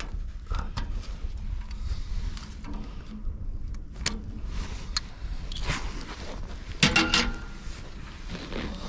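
Hand tools clicking and clinking against metal while the old resistor is worked loose from the Farmall B, over a steady low rumble; a louder clatter comes about seven seconds in.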